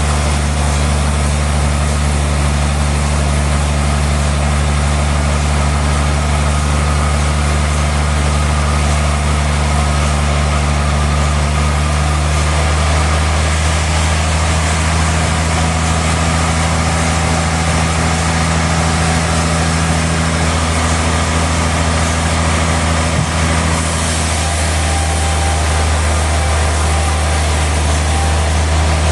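Sawmill machinery's engine running steadily: a constant, loud, low drone with a faint shift in tone a few times.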